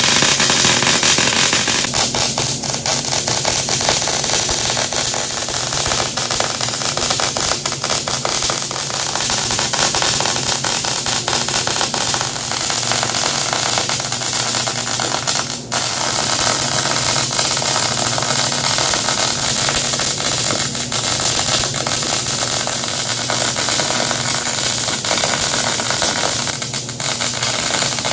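Electric arc welding on steel: the arc gives a steady crackling sizzle, broken briefly about halfway through and again near the end where the bead stops and restarts.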